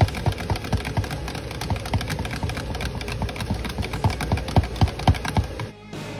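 Stainless steel wire whisk stirring thick soap batter in a plastic pitcher, its wires clicking and scraping against the sides several times a second. The sound cuts off suddenly near the end.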